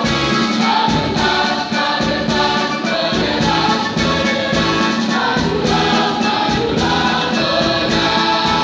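Large mixed choir of high-school students singing an Indonesian patriotic song.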